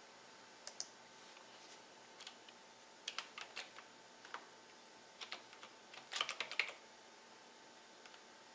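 Computer keyboard keys tapped faintly in short bursts as a word is typed, after a couple of clicks about a second in. The densest run of keystrokes comes about six seconds in.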